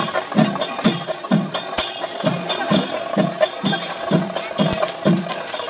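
Kerala temple festival percussion ensemble of drums and hand cymbals playing a steady beat, about two strokes a second, with a held tone sounding over it.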